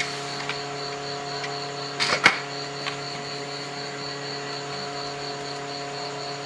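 A few sharp plastic clicks about two seconds in, as the power strip's cover is closed and pressed back into place, over a steady background hum.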